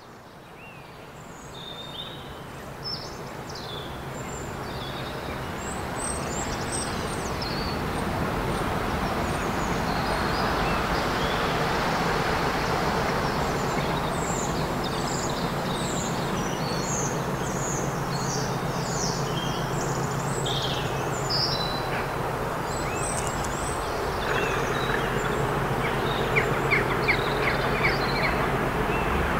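Class 37 diesel locomotive approaching under power, its English Electric V12 engine swelling over the first several seconds into a steady drone. Birds chirp throughout.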